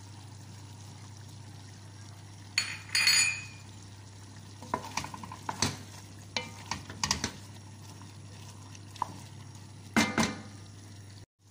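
A spoon stirring a thick stew of chicken, potatoes and vegetables in a pot, with scattered clinks and scrapes of the utensil against the pot: around three seconds in, several between five and seven seconds, and again at ten seconds. A steady low hum runs underneath.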